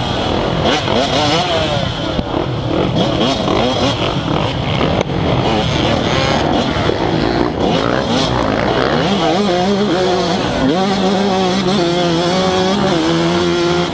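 Yamaha YZ125 single-cylinder two-stroke dirt bike engine revving up and down under hard riding, with other dirt bikes' engines close by. From about ten seconds in the revs hold steadier on the open straight.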